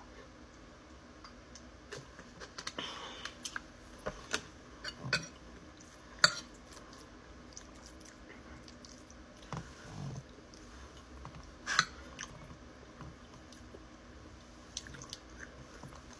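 Close-miked eating: chewing and mouth sounds of a person eating lamb curry and rice, with scattered sharp clicks, the loudest about six seconds in and again near twelve seconds.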